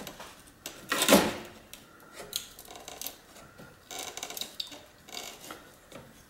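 Flat pry bar levering nailed wooden window molding away from the frame against a wood shim: wood and metal scraping and creaking with small clicks, and one louder scrape about a second in.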